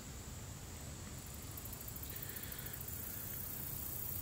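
Quiet outdoor ambience in summer woods: a steady low rumble with a faint insect buzz rising for about a second, two seconds in.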